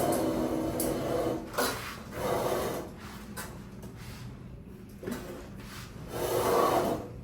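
Hands or a hooked grip rubbing and scraping over skin during a manual therapy muscle release: several slow scraping strokes, each about a second long, the last near the end the loudest.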